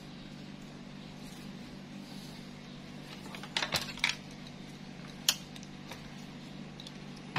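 A few light clicks and clinks from handling the lifted circuit board and the analog multimeter, a small cluster about three and a half seconds in and single clicks near the middle and the end, over a steady low hum.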